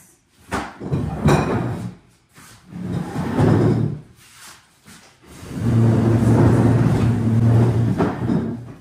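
Furniture being dragged and shifted across the floor: scraping with knocks in two short spells, then a longer steady scrape with a low drone from about five and a half seconds in.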